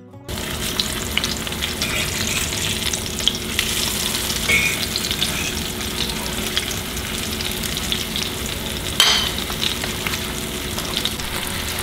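Cornmeal-dusted bluegill fillets frying in hot coconut oil in a cast-iron skillet: a steady crackling sizzle, with a brief louder burst of crackling about nine seconds in.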